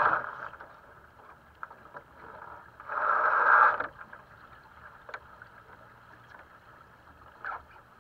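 Sailing dinghy moving through the water: a steady swish of water along the hull, with a louder rush of water right at the start and again about three seconds in lasting under a second, and a few faint clicks from the boat's fittings.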